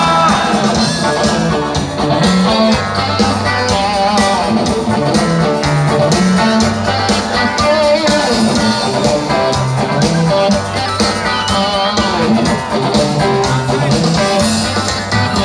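Rock band playing live: an instrumental passage between sung lines, with guitar over a moving bass line and steady drums.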